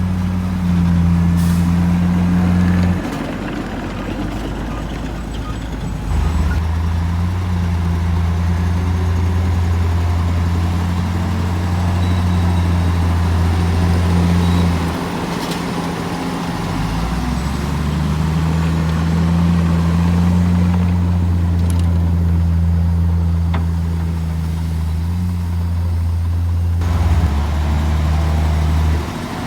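Heavy diesel engine of earthmoving machinery running loud and steady, its low drone shifting to a different pitch several times as the load or revs change.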